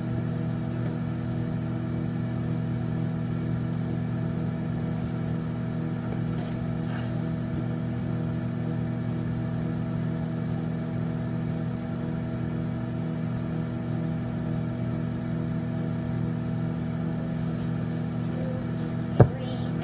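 Microwave oven running: a steady electrical hum, with one sharp click near the end.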